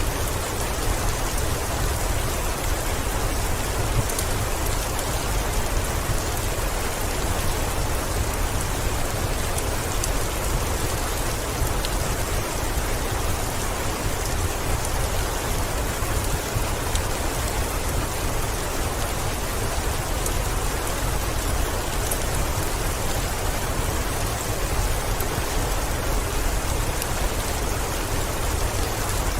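Heavy rain falling steadily on a window, an even unbroken patter with a low rumble underneath and faint scattered ticks.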